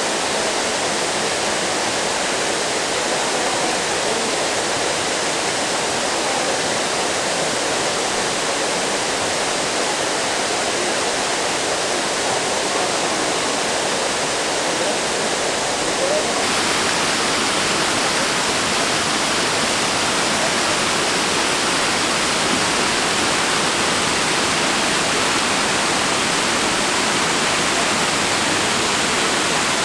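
Waterfall rushing steadily, a dense continuous roar of falling water. About two thirds of the way through, the rush shifts abruptly to a slightly brighter, louder sound.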